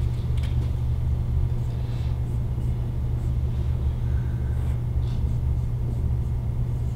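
Steady low room hum, with faint squeaks and taps of a marker writing on a whiteboard about midway.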